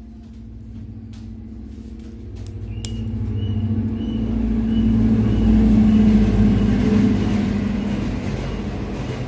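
A low rumble with a steady hum, swelling to its loudest about halfway through and then easing off, with a short high beep repeating about twice a second from about three seconds in.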